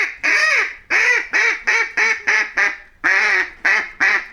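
A duck quacking: a quick run of about a dozen short, nasal quacks, with a brief pause about three seconds in.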